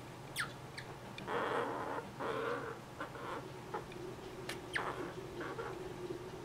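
Young Richardson's ground squirrels squeaking while grooming and tussling. Two short high squeaks drop sharply in pitch, about half a second in and again near five seconds, between stretches of scratchy scuffling and a few soft clicks.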